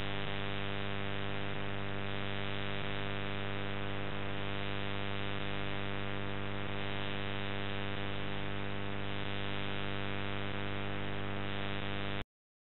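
Steady electrical mains hum with a buzzy stack of overtones on the soundtrack of an old home videotape as the recording ends and the picture breaks up. It cuts off suddenly near the end.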